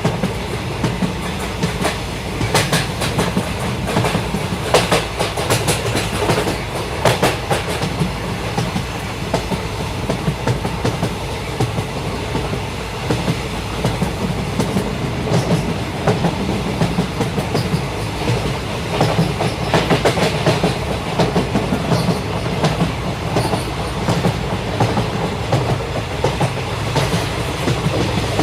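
A running train: a steady low rumble with the repeated clickety-clack of wheels passing over rail joints, the clicks bunching more densely at a few points.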